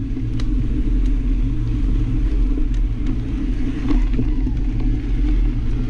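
Steady low rumble of a mountain bike riding a rough dirt road, picked up by a bike-mounted action camera: tyre and frame vibration with wind on the microphone, and a few faint clicks.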